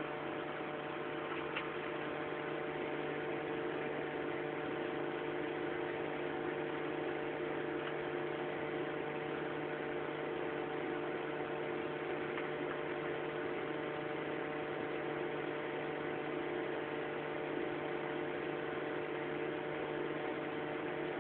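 Steady electrical hum from running equipment: a few unchanging low tones over a constant hiss.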